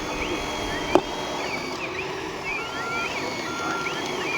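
Electronic reversing beeps from a radio-controlled model truck's sound module: a steady tone repeating a little under a second apart. Rising-and-falling whistling tones run over it, and a sharp click sounds about a second in.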